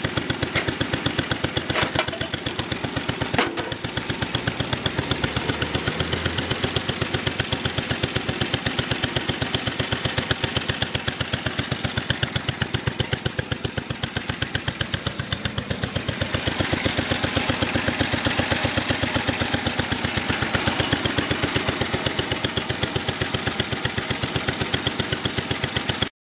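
Single-cylinder engine of a 1970 Montgomery Ward 14 hp garden tractor running steadily, its exhaust pulses even throughout. There are two sharp clicks in the first few seconds, and the tone shifts slightly about two-thirds of the way in.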